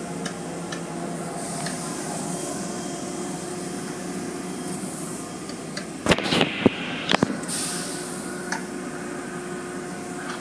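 Automatic car wash heard from inside the car: a steady noise of spraying water and wash machinery, with a quick cluster of loud knocks about six to seven seconds in.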